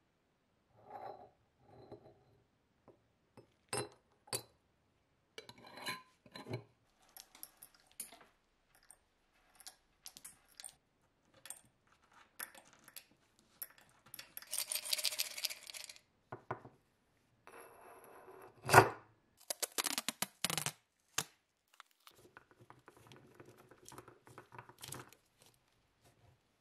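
Small metal-workshop handling sounds: clinks, taps and knocks of a metal bottle and tools on a workbench, with a stretch of scraping at flaking paint on the bottle around the middle and one sharp knock about three-quarters of the way through.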